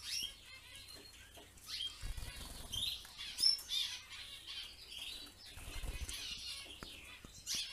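Cage finches flying between perches: two short flurries of wingbeats, about two seconds in and again about six seconds in, with a few short, high chirps between them.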